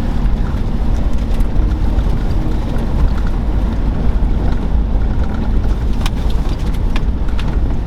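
Truck driving slowly over a rough dirt road: a steady engine and road rumble, with a few sharp knocks from bumps near the end.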